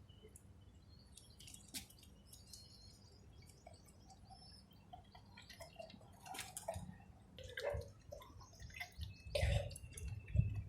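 Quiet drips and small splashes of water as drunk water is brought back up in kunjal kriya, the yogic cleanse of making oneself vomit with fingers in the throat. The splashes come more often in the second half, with a louder one near the end.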